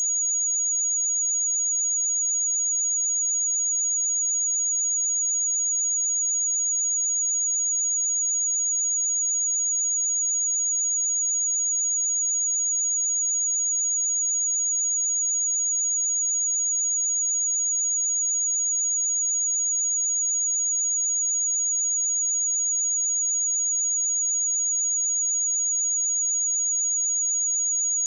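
A pure 6746 Hz sine-wave test tone: a single steady, very high-pitched whistle-like tone held at one pitch and level throughout.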